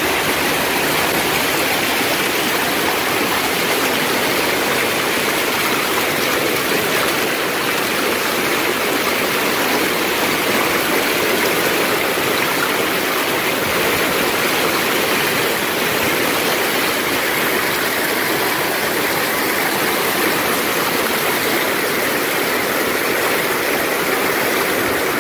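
Heavy hail and rain pelting pavement and parked cars, a dense steady hiss with no single hits standing out.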